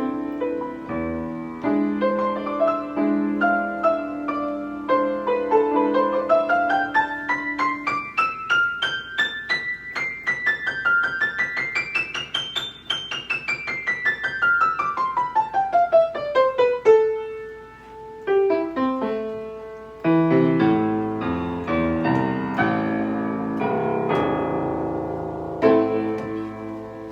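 Steinway piano being played: a long run of notes climbs to a high peak about halfway through and comes back down, then full chords follow near the end.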